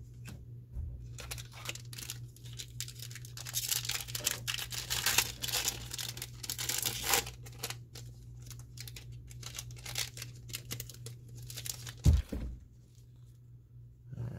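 Foil wrapper of a Magic: The Gathering collector booster pack being torn open and crinkled, the tearing loudest in the middle, over a low steady hum. Lighter crinkling follows, then a single sharp thump near the end.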